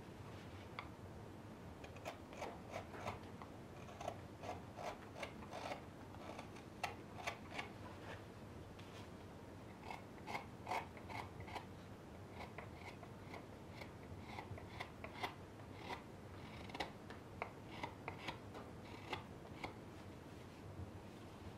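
Knife shaving raw birch by hand: a run of short, crisp slicing cuts, irregular and grouped in clusters with brief pauses between them.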